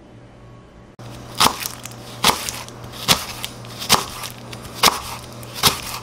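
Kitchen knife slicing a thick green onion on a wooden cutting board: six crisp chops at an even, unhurried pace, a little over one a second, starting about a second in.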